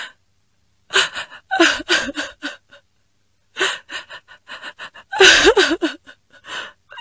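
A person's quick, gasping breaths in short bursts, pausing briefly near the middle, with a louder, shaky voiced gasp about five seconds in.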